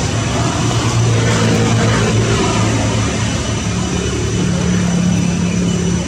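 A steady low engine drone, shifting slightly in pitch about halfway through, with a thin steady high tone above it.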